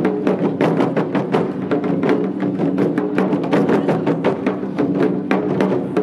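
Taiko drum ensemble playing: several barrel drums struck with wooden sticks in a fast, even rhythm of sharp strokes.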